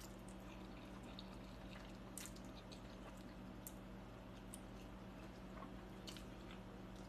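Faint eating sounds while chewing spaghetti: scattered small wet clicks, about one every second or so, over a steady low hum.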